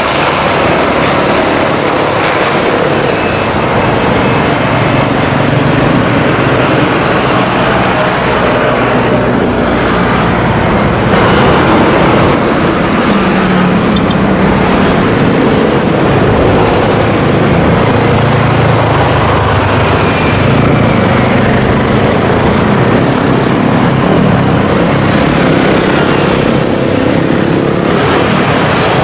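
Aircraft engines running at high power: a loud, steady drone whose low pitch drifts slowly up and down.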